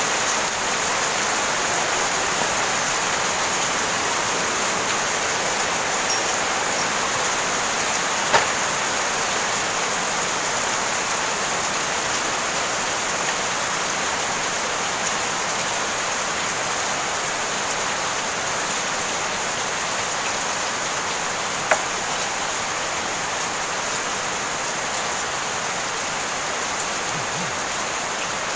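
Heavy rain falling steadily. Two sharp clicks stand out over it, about eight seconds in and again about twenty-two seconds in.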